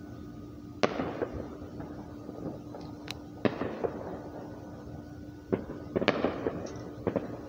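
Distant fireworks going off: about six sharp bangs at uneven intervals, the loudest cluster about six seconds in, some followed by a short crackle. A steady low hum runs underneath.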